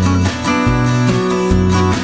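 Background music: strummed acoustic guitar with a bass line and a steady beat.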